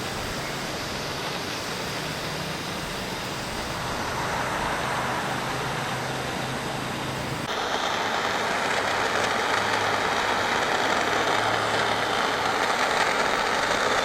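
Steady hiss of a soldering torch flame heating seams of copper roofing, with a faint low hum beneath. About halfway through the sound changes abruptly to a louder, brighter hiss.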